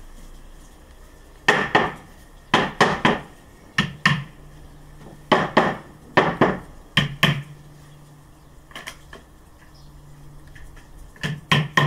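Cloth-covered rubber mallet tapping the slotted beech-ply panels of a flat-pack beehive home: sharp knocks, about sixteen in all, mostly in quick pairs and threes with short pauses between.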